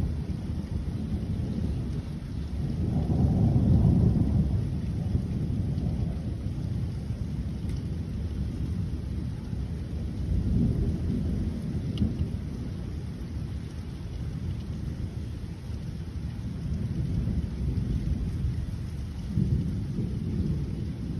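Thunder rumbling over steady rain. The rumble swells about three seconds in, again around ten seconds, and once more near the end.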